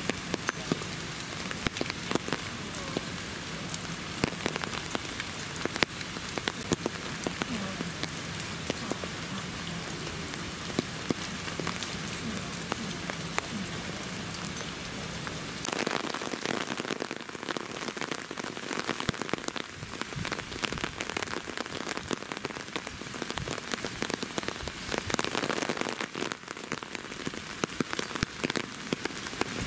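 Steady rain falling on surfaces nearby, a constant hiss dense with the sharp taps of single drops.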